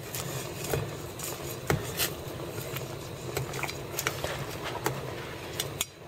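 Water boiling in a large stainless stockpot, a steady rumbling hiss. Light clicks and taps come every second or so as chopsticks push stiff dried noodles down against the pot.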